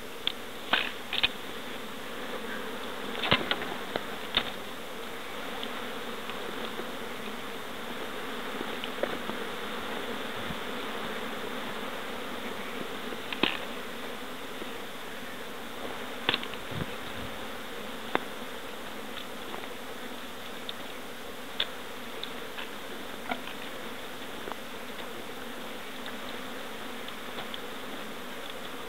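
Steady buzzing of insects, with a few scattered sharp clicks, the loudest of them in the first few seconds.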